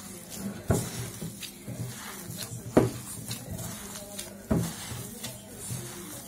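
Raw ground-meat mixture for köfte being kneaded by a gloved hand in a glass bowl: soft wet squishing, broken by three sharp knocks about two seconds apart.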